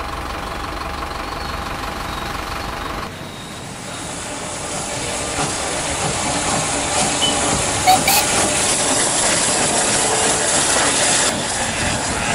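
Steam locomotive hissing steam as it runs in, a strong steady hiss that grows louder, with one sharp knock about eight seconds in. Before it, for about three seconds, the low rumble of a vintage double-decker bus engine.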